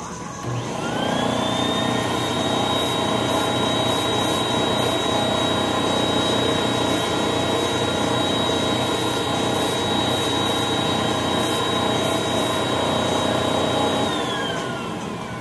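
Advance AquaClean 16XP carpet extractor's vacuum motor spinning up with a rising whine about a second in, then running steadily at a high whine while its upholstery hand tool sprays and sucks water from carpet. It winds down with a falling whine near the end.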